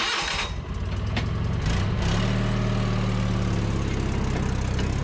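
Engine of a small rail motor car (speeder) starting abruptly and running as the car moves off along the track, its pitch rising about two seconds in.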